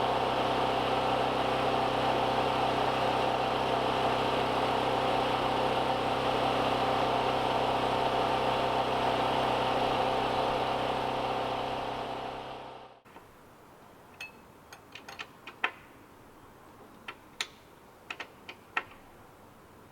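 A small engine running steadily at an even speed, fading and then cutting off abruptly about two-thirds of the way through. After it stops, scattered light clicks and knocks.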